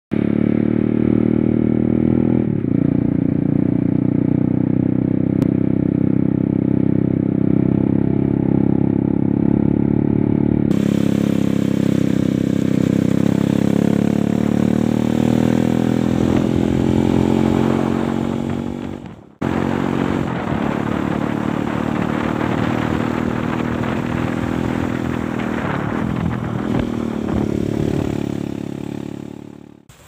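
Dirt bike engine running steadily under way, with wind and road noise. The sound breaks off for a moment about two-thirds through and fades out at the end.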